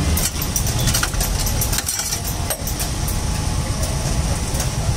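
Steady low rumble of street-stall background, with scattered light clicks and taps, some from a steel spoon on the plate near the end.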